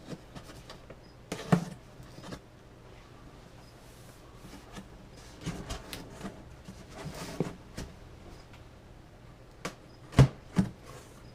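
Cardboard box being opened and its packaging handled: scattered rustling and scraping with a few sharp knocks, the loudest two close together near the end.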